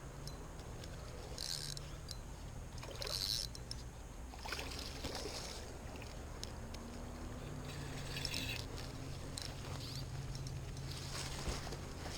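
Water splashing and sloshing in several short bursts as a hooked fish is played near the bank, over a low steady rumble.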